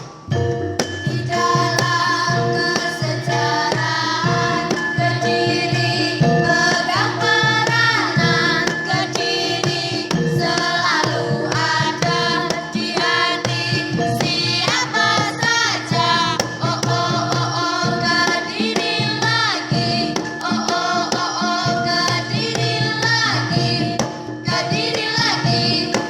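Music: a voice singing with wavering, sliding ornaments over a steady sustained drone, with regular drum beats.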